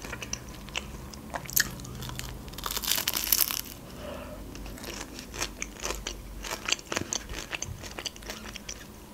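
Close-miked biting and chewing of a McDonald's fried pie's crisp pastry crust. A loud crunch of a bite comes about three seconds in, followed by smaller crackles as it is chewed.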